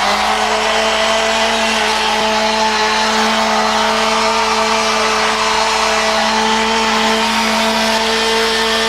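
Chainsaw engine held at full throttle, a loud steady high buzz that keeps one pitch.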